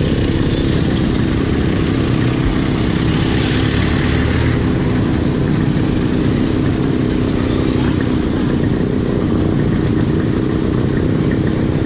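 Motorcycle engine idling steadily close by, over the mixed noise of street traffic passing.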